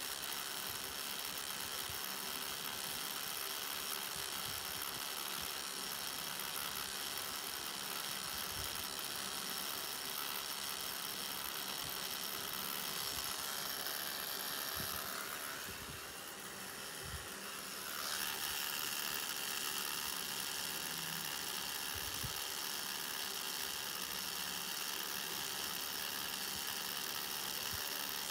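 Cartridge tattoo machine running steadily with a fine buzzing hum while lining a tattoo into skin, its sound dipping briefly a little past halfway.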